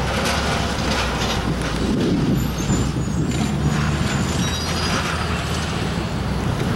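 Road traffic driving past close by: a pickup truck and then a utility truck, with a steady low engine hum and tyre noise.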